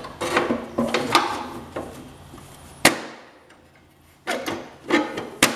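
Hand tools and parts being handled while working on a garden tractor: knocking and rustling, then a sharp knock that rings briefly about three seconds in, and another sharp knock near the end.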